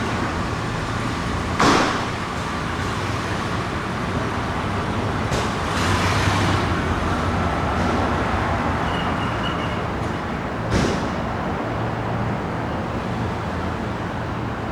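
Engine of a fire department paramedic squad vehicle running steadily as it sets off on a call, with a few sharp knocks and a short high beep.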